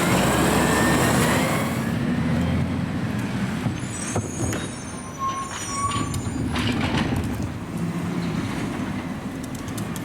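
Automated side-loader garbage truck running, with a loud hiss and a faint rising whine for the first two seconds, then a lower steady engine rumble with scattered clanks.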